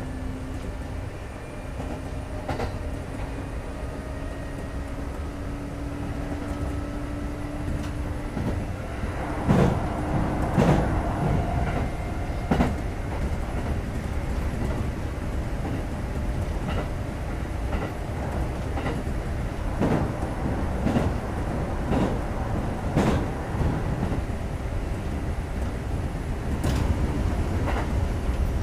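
Kintetsu 2430 series electric train running, heard from inside the car: a steady rumble of wheels on track with a faint hum that rises slowly in pitch over the first several seconds. From about ten seconds in, sharp clacks of the wheels over rail joints come at irregular intervals.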